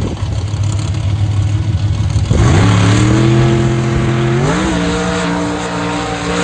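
A vehicle engine running at a low steady speed, then revving up sharply about two and a half seconds in and holding there. Its pitch steps up again to a higher steady level just before the end.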